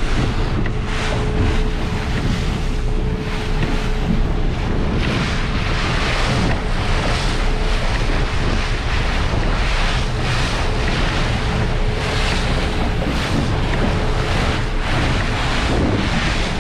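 Wind buffeting the microphone and choppy water splashing and rushing past the hull of a Stabicraft 2050 Supercab aluminium boat on a slow cruise, with a steady outboard motor hum underneath.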